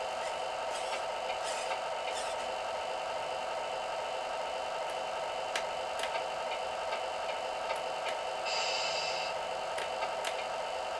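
Semi-truck sound-effect module playing a steady engine-idle sound through a small speaker, with scattered sharp clicks and a short hiss lasting under a second about eight and a half seconds in.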